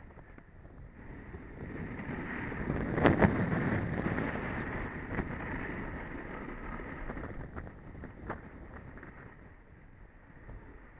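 Edges sliding and scraping over packed snow on a fast run down a piste, with wind rushing over the head-mounted microphone; the rush swells about two seconds in, peaks around three to four seconds with a sharp knock, then slowly fades.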